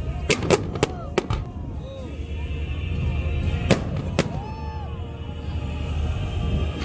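Fireworks going off in sharp cracks, about five in quick succession in the first second and a half and two more around the middle, over background music.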